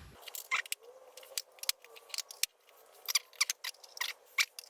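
Irregular light clicks, taps and clatter of plastic and metal parts of a pocket hole jig being handled and fitted together by hand.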